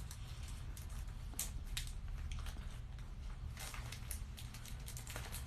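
Intermittent rustling and crinkling from packaging being handled, a few short crackles over a steady low hum.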